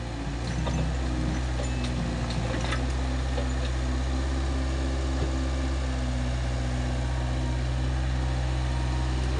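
Mini excavator's diesel engine running steadily while the machine digs and swings its boom, with a few faint knocks about two seconds in.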